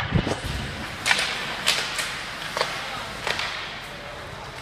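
Ice hockey play: a low thud right at the start, then about five sharp cracks of sticks and puck over the next few seconds, over the steady hubbub of the rink.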